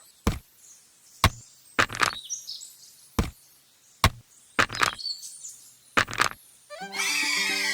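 A series of sharp taps, about ten of them a half-second to a second apart, some in quick pairs, as of small hard pieces being knocked together in miniature construction work. Music comes back in near the end.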